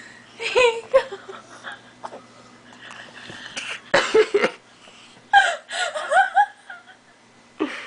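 A five-month-old baby making short, high-pitched squeals and grunts in several separate bursts, with a mouthful of peas, her first solid food, which she dislikes.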